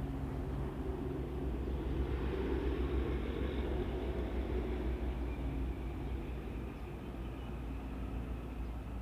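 An engine running steadily with a low hum, getting a little louder in the first few seconds and then easing off slightly.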